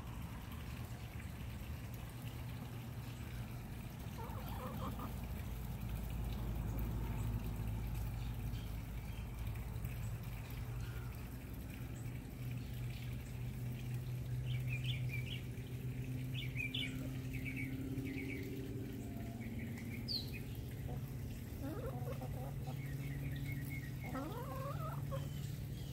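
Backyard hens, Easter Eggers and White Leghorns, clucking and chattering softly while pecking at food, with short calls coming more often in the second half. A steady low hum runs underneath.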